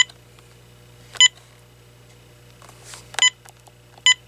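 Key-press beeps from an AT&T 7720 cordless phone as its buttons are pressed: four short, identical single-pitched beeps, irregularly spaced, some preceded by a faint button click.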